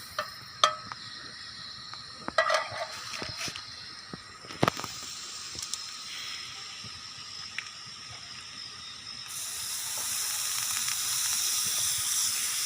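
Margarine sizzling in a cooking pan, with a few sharp clicks and knocks in the first five seconds. The hiss grows louder about nine seconds in.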